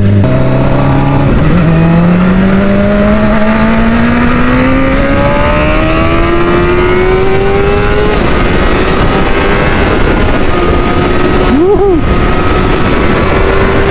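Honda 600 cc inline-four sport bike engine pulling under throttle: its pitch climbs steadily for about eight seconds, then holds at a steady cruise. Wind rushes throughout.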